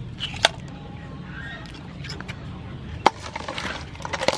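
A utensil clicking and knocking against a ceramic plate while blue crab salad with shell pieces is moved around on it. There are a few sharp clicks, the loudest about three seconds in and a quick cluster near the end, over a low, steady background hum.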